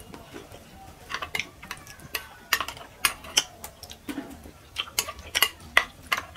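Metal spoons clicking and scraping against ceramic plates of soft khichuri as two people eat. The sharp clicks come irregularly, a few each second.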